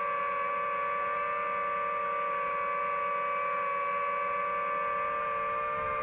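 DJI FPV quadcopter's propellers whining steadily as it hovers. The tone stays even, a low note and one an octave above it, and dips a little near the end as the drone starts to move off.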